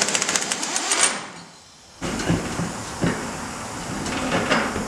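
A wrench rattling rapidly on a nut on a go-kart's wheel hardware, stopping about a second in. After a short pause come irregular metal clicks and knocks from handling the tool and parts.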